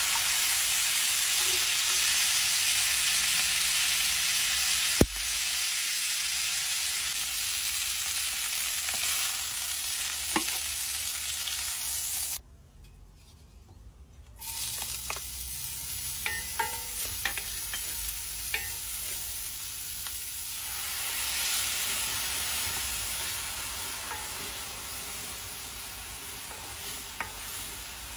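Meat and fat sizzling in a hot cast-iron skillet over charcoal, a steady frying hiss with one sharp click about five seconds in. A brief near-silent break comes near the middle, then the sizzling returns with scattered small pops as the pan is stirred.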